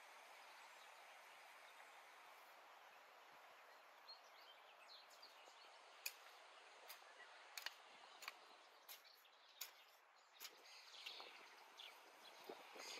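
Quiet outdoor background with a few bird chirps. From about four seconds in, a metal garden hoe chops into the soil of a tilled plot in a string of sharp, irregular strikes.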